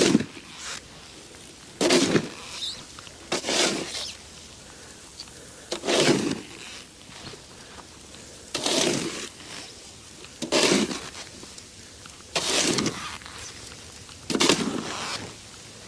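Snow shovel scooping and pushing powdery snow, a rough crunching scrape about every two seconds, seven strokes in all.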